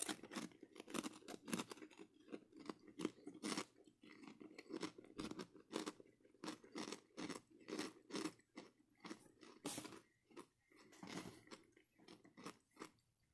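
Chewing a mouthful of puffy fried pork rinds: a long run of sharp crackles and crunches.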